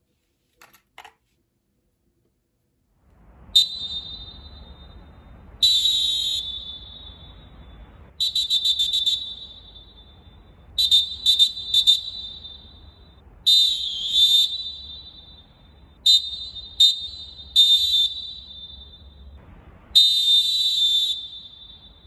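Molten Dolfin Pro pealess referee whistle blown hard in about ten shrill blasts starting a few seconds in, a mix of short toots, a quick triple and long blasts of over a second. Each blast trails off in an echo around the empty stadium.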